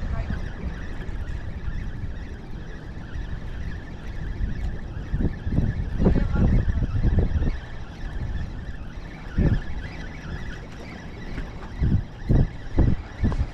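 Wind buffeting the microphone in uneven low rumbles that come and go in gusts.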